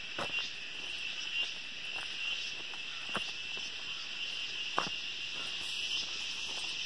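A steady, high-pitched chorus of insects that the narrator calls 'locust kind of insects', buzzing without a break. A few faint clicks come through it.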